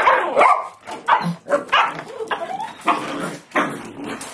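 Small dogs barking and yapping repeatedly, about two sharp barks a second.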